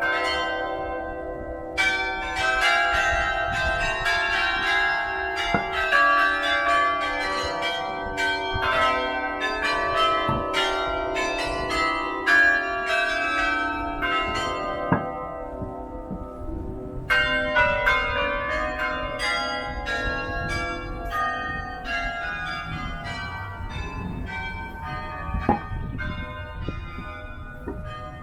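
St Pierre Cathedral's carillon playing a tune: many tuned bells struck in quick succession, each note ringing on under the next. About halfway through the playing stops for a second or two while the bells die away, then carries on.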